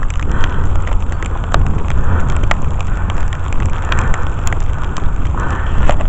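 Strong snowstorm wind buffeting the microphone as a heavy low rumble, with footsteps crunching through deep snow and scattered sharp clicks.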